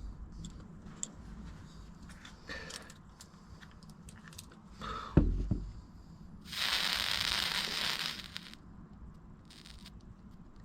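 Flux sizzling for about two seconds as a soldering iron tip meets flux-coated wire ends, tinning them with solder. Small handling clicks and a thump come a little before it.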